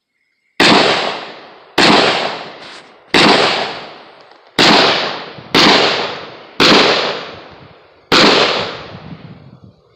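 Seven gunshots from a firearm, spaced about a second to a second and a half apart. Each shot trails off in a long echo.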